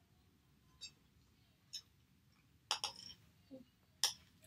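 Chewing a mouthful of food with a few soft mouth clicks, then a metal spoon clinking and scraping against a ceramic bowl, a cluster of clinks a little before three seconds in and the loudest one about four seconds in.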